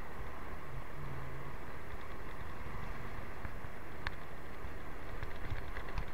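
Motorcycle running steadily while riding, its engine hum under steady wind and road noise on the microphone, with a faint click about four seconds in.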